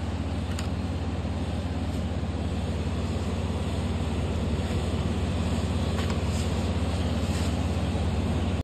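Water-well drilling rig running steadily, its engine's low hum under the noise of the rotary bit boring down, with a couple of faint clicks.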